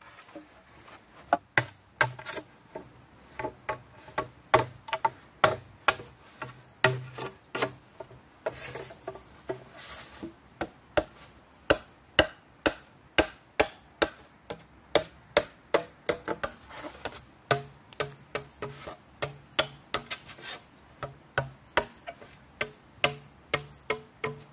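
Hand tool striking bamboo in a steady rhythm, about two sharp strikes a second, over a constant high drone of insects.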